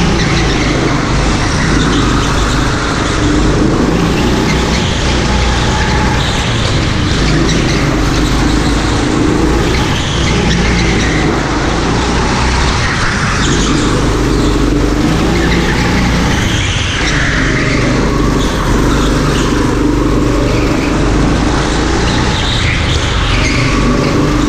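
Go-kart engine heard from onboard at close range, running hard and rising and falling in pitch every few seconds as the kart speeds up and slows for corners, over a steady low rumble.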